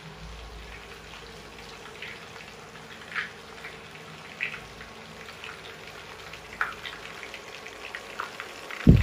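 Meatballs deep-frying in a small pot of oil: a steady sizzle with scattered crackling pops. A dull thump comes right at the end.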